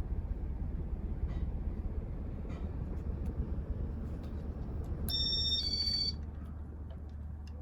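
1995 Casablanca Panama ceiling fan motor running with a steady low hum, on fresh bearings but with a winding the owner believes is burned out or dead. About five seconds in, a short electronic beep of stepped tones sounds for about a second.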